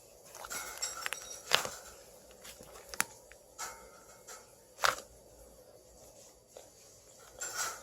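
Slime made with Elmer's glue and mixed with Plumo lightweight clay being squished and pressed by hand: scattered sticky clicks and pops, three of them sharp, and a longer squelch near the end.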